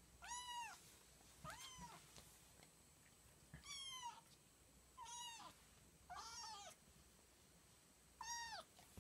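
Young calico kitten meowing: six short, high-pitched meows, each rising and then falling in pitch, spread a second or more apart.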